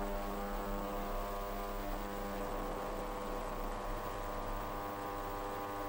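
Ultrasonic cleaner running, cleaning watch case parts in its fluid: a steady hum with a stack of overtones and a faint hiss, unchanging throughout.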